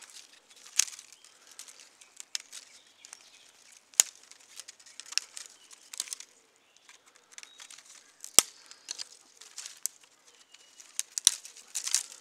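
Dry dead twigs and brush crackling and rustling, with several sharp snaps of sticks breaking, the loudest about eight seconds in.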